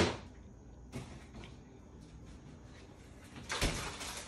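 Kitchen sounds of a lunchbox being unpacked: a sharp knock of a door or cabinet shutting at the start, a faint knock about a second in, then a short clatter and rustle near the end.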